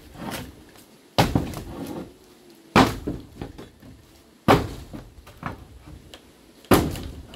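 Four heavy blows struck at a slow, even pace, about one every one and a half to two seconds, each a sharp thud with a brief ring after it.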